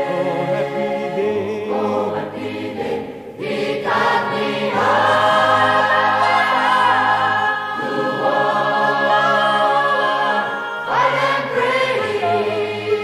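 An a cappella choir singing held chords, swelling louder about four seconds in.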